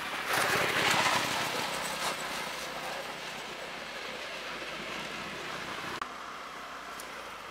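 A vehicle running, loudest about a second in, then a steady hum.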